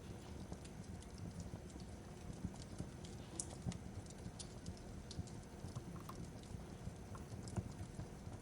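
Fireplace crackling: wood fire with irregular sharp pops and snaps over a steady low rumble of burning.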